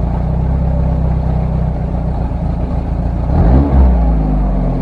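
Car engine running with a steady low note, given one quick rev about three and a half seconds in that rises and falls back.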